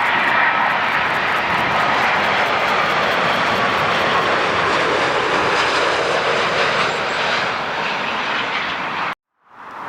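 Jet noise of a Boeing 787 airliner coming in to land: a loud, steady rush with a faint whine in it. It cuts off abruptly near the end.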